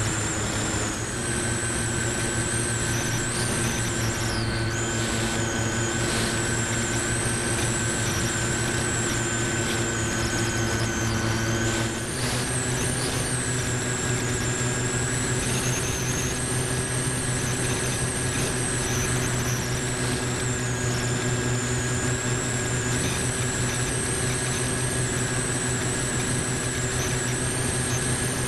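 Multiplex Moviestar RC plane's electric motor and propeller running steadily, heard through the onboard camera, with a held drone and a wavering high whine over airflow noise. The pitch shifts slightly about twelve seconds in.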